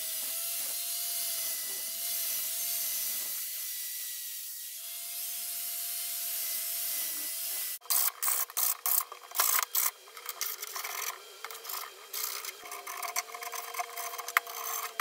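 A handheld power tool runs with a steady hiss and whine as it cuts through a steel repair panel. About two-thirds of the way through the sound switches abruptly to irregular scraping and clatter as the thin sheet-metal strip is worked and moved on the bench.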